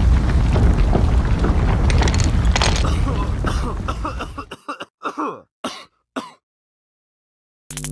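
The rumble of an explosion dying away over the first four seconds, then a few short coughs from a figure caught in the smoke.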